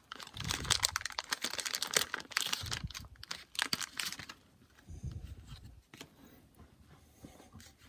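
A baseball card pack's paper wrapper being torn open and crinkled, with the cards handled: dense crackling and rustling for about four seconds, then softer, scattered handling sounds.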